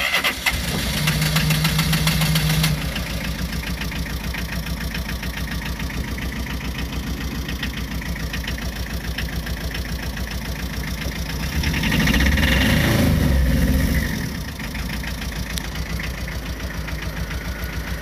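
Tata Ace Gold's engine cranked by the starter and catching after about two and a half seconds, then idling with an even pulsing beat. About twelve seconds in it runs louder for around two seconds, then settles back to idle.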